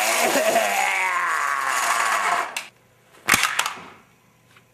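A chainsaw running loud and revving, its pitch rising and falling. It cuts off about two and a half seconds in, followed by a single sharp crack.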